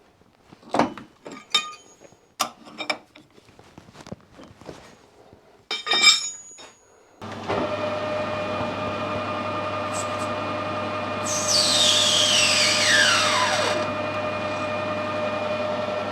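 Metal clanks and knocks as brass stock and tooling are handled. About seven seconds in, a metalworking machine switches on and runs steadily with a hum. Midway through its running, a cut sets off a loud whine that falls steadily in pitch over a couple of seconds.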